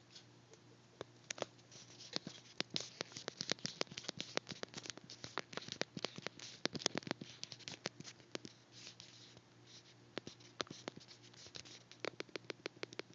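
Rapid, irregular scratching and clicking over a steady low hum.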